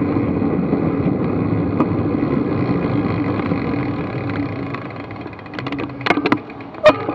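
Bicycle riding along on asphalt: wind rushing on the bike-mounted camera's microphone, with tyre noise. It eases off as the bike slows over the last few seconds, and a few sharp clicks and knocks come near the end.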